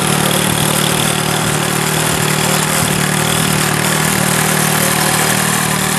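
Small motorcycle engine running steadily while riding, over a steady rush of wind and road noise.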